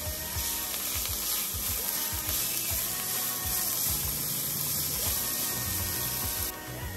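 Chopped onion and grated carrot sizzling in hot vegetable oil in a frying pan: a steady crackling hiss that cuts off abruptly near the end.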